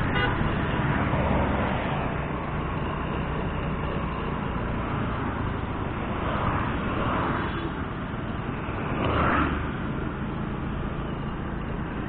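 Road traffic noise heard from a moving vehicle: steady engine and tyre rumble, with other vehicles passing and swelling louder a couple of times.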